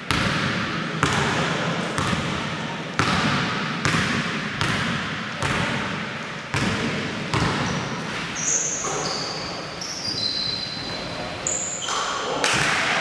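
A basketball being dribbled on a hardwood gym floor, bouncing about once a second with echo from the hall. Later, short high-pitched sneaker squeaks on the floor, then another bounce near the end.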